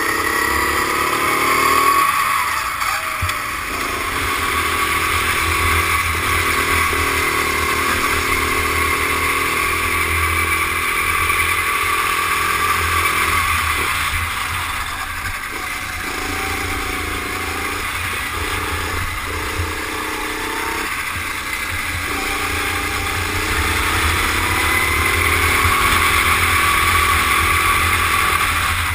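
Rental go-kart engine heard from the driver's helmet camera, climbing in pitch as it accelerates out of each corner and dropping back when the throttle comes off, several times over.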